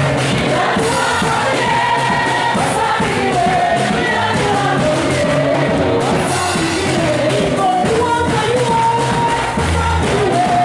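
Live praise music: voices singing together over band accompaniment with a steady beat.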